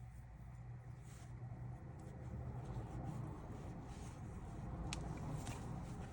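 Faint rubbing and handling of parts as a new housing gasket is fitted onto a power steering pump housing, with a couple of light clicks about five seconds in, over a low steady rumble.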